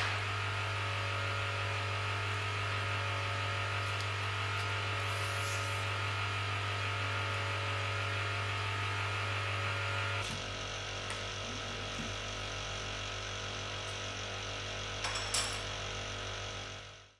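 Vacuum pump running with a steady hum for vacuum bagging a composite layup. About ten seconds in the sound shifts and gets a little quieter, with a couple of faint clicks, then fades out at the end.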